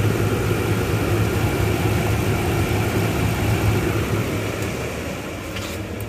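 Toyota Tundra's 5.7-litre 3UR-FE V8 engine idling steadily.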